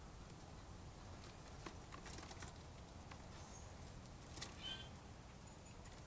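Faint background hum with soft scattered clicks and rustles of small birds moving at a wire-cage feeder, including a short wing flutter. A brief high bird chirp comes about four and a half seconds in.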